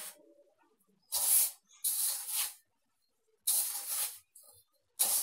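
Hands rubbing and squeezing flour and oil in a plastic bowl: four rustling, gritty scrapes about a second apart with pauses between. The oil is being rubbed into the flour until it forms a crumbly mix for crisp pastry dough.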